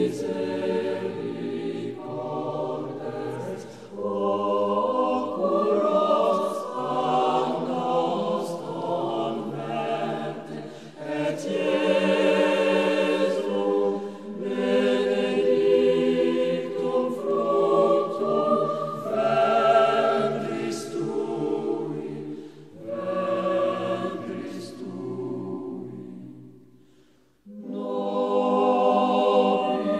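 A choir singing, with a short pause near the end before the singing resumes.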